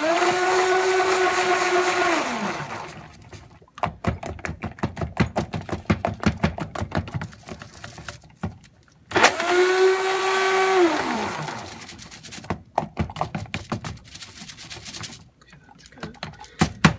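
Stick blender run in two bursts of about two seconds each in cold process soap batter, its motor pitch sliding down as it winds off after each burst. This is blending the batter to thicken it toward trace. Between the bursts come rapid light clicks and knocks as the blender head is stirred through the batter in the bowl.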